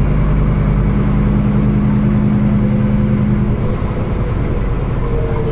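Scania N320UB city bus's five-cylinder diesel engine running as the bus drives, heard from inside the passenger cabin. Its steady drone eases off about three and a half seconds in.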